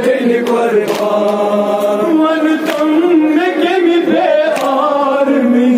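A male reciter chanting a noha, a Shia lament, through a microphone and PA, with men's voices joining in. Sharp slaps from chest-beating (matam) come roughly every two-thirds of a second.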